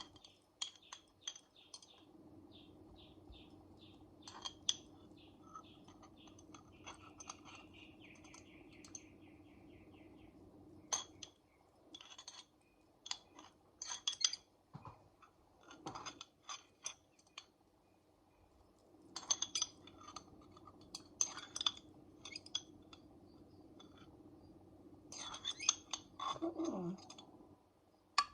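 Scattered light clinks and clicks of kitchen utensils against glass, in small clusters, while maraschino cherries are set into pineapple rings in the cake pan. A faint steady hum lies underneath.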